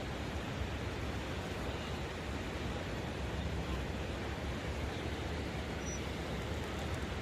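Steady rush of floodwater pouring through the fully opened gates of a river weir, an even noise with no pauses.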